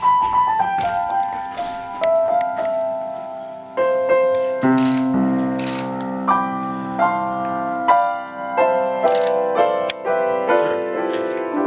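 Piano playing a slow falling melody of single notes, then fuller ringing chords from about four seconds in, with a few light percussive rattles.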